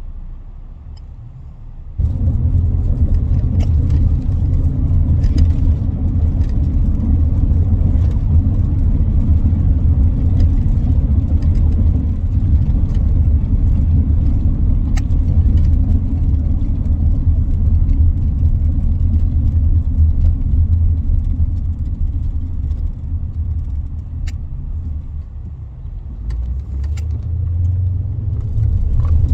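Steady low rumble of a car driving, heard from inside the cabin. It starts suddenly about two seconds in, eases a little near the end, then picks up again.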